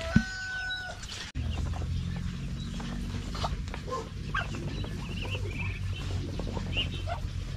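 Poultry in a pen: ducklings and chickens peeping and clucking in short scattered chirps over a steady low hum. Just before a cut about a second in, a bird's held call and a sharp click.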